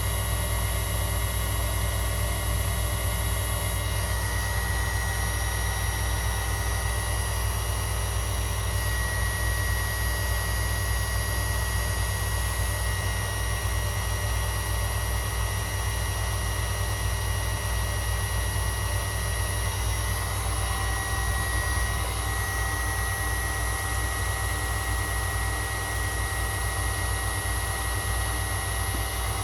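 Steady machine hum with a strong low drone and a thin high-pitched whine that drops out briefly a few times.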